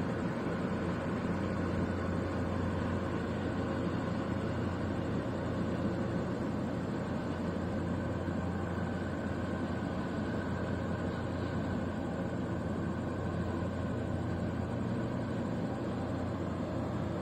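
Steady low drone of ship engines: the container ship and its attending tug moving slowly past close by.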